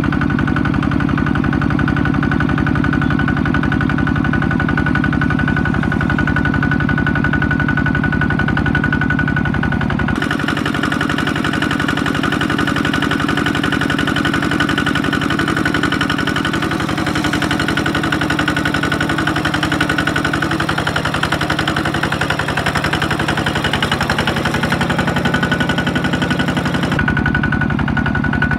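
Single-cylinder diesel engine of a two-wheel walking tractor running steadily with a fast, even beat while the tractor is stuck in deep mud with a loaded trailer. The sound shifts abruptly about ten seconds in and again near the end.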